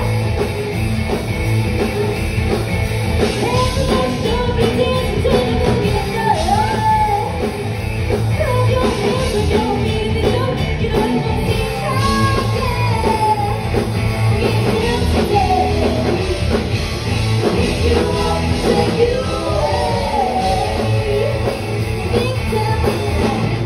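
A live rock song with a singer over a steady drum and bass beat.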